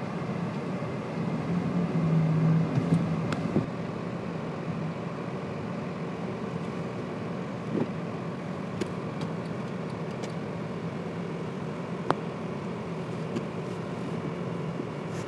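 Steady running noise of a moving vehicle heard from inside, with a low hum that swells for a few seconds near the start and a few light clicks.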